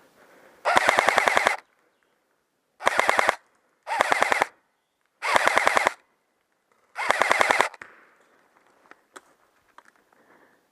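Airsoft gun firing five short full-auto bursts, each a fast even rattle of shots lasting about half a second to a second.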